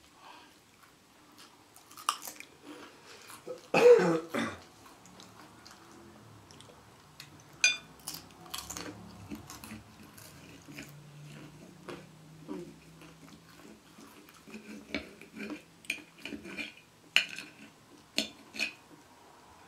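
Meal sounds: a metal fork and knife clinking and scraping on ceramic plates in scattered short clicks, with soft mouth sounds of eating between them. One short, loud vocal sound about four seconds in, louder than anything else.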